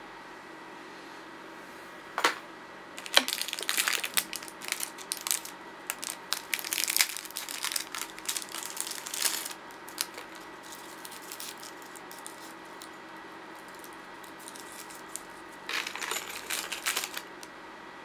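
Handling noise close to the microphone: quick clicks and crackles coming in a long spell, then a shorter one near the end, over a faint steady hum.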